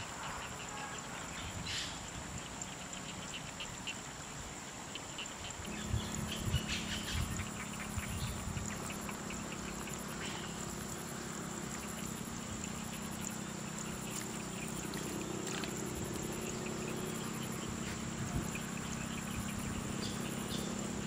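Outdoor ambience of insects and frogs calling, with a steady high-pitched insect whine. About six seconds in a low steady hum joins, with a few soft knocks.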